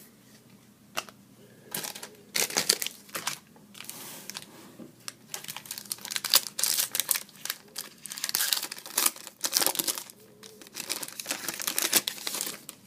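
Hockey trading cards and their plastic packaging being handled, crinkling and rustling in irregular bursts.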